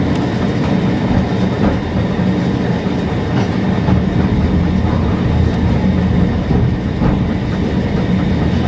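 Cable-hauled Great Orme tramcar running steadily down its rails, a continuous low rumble with a few faint clicks, heard from inside the open-sided car.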